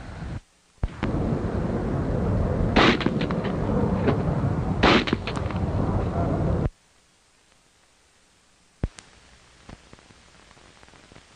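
Two rifle shots about two seconds apart over a steady rushing noise that cuts off abruptly, followed a few seconds later by a single sharp crack.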